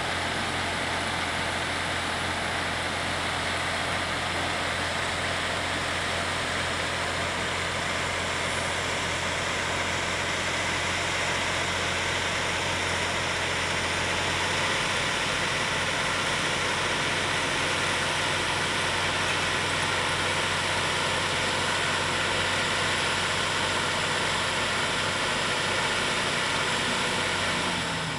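Heavy vehicle engines running steadily at idle, a constant low hum under an even hiss, with the hum shifting slightly about halfway through.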